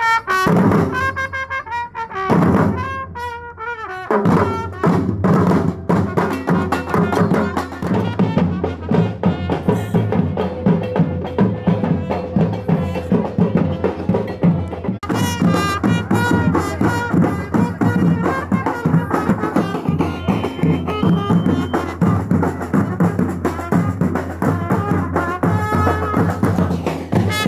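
Street marching band playing: marching drums beating a steady rhythm under trumpet.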